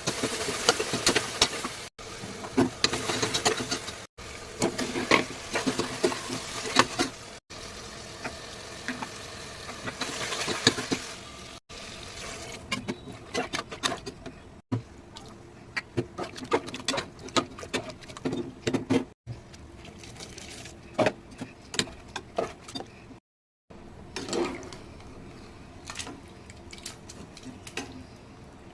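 Pot cooking sounds across several short cuts: a utensil stirring and knocking in a pot with frequent clinks and scrapes, over a steady sizzling hiss in the first half.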